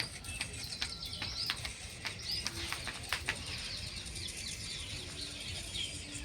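Many small birds chirping and twittering at once, with a few sharp clicks in the first second and a half, over a steady low background rumble.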